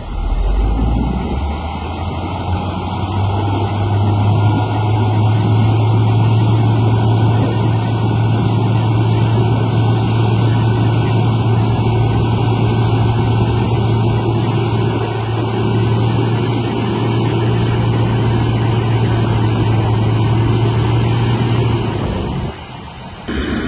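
Dump truck's diesel engine running steadily while it powers the hydraulic hoist that tips the loaded bed. The sound cuts off sharply near the end.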